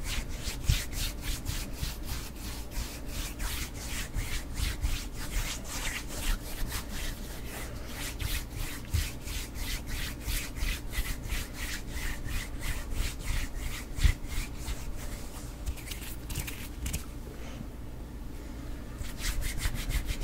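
Palms rubbing briskly together close to a foam-covered microphone: a rhythmic swishing of about three or four strokes a second, which pauses for a couple of seconds near the end and then starts again.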